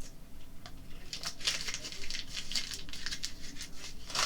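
Plastic packaging crinkling and rustling as it is handled, in a run of quick crackles through the middle, with a sharp click near the end.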